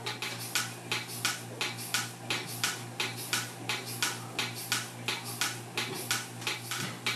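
Simple Pulse goat milking machine running while milking: the pulsator hisses in an even rhythm, about two pulses a second, over the steady hum of the vacuum pump.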